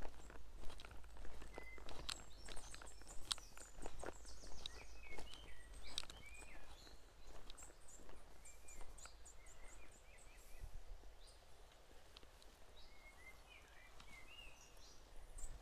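Footsteps crunching over loose river shingle and stones, frequent at first and sparser later, while small birds chirp and sing repeatedly.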